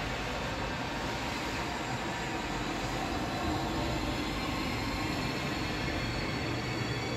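ICE 4 high-speed electric train pulling away and accelerating: a steady rail rumble with a motor whine that rises in pitch from about halfway through.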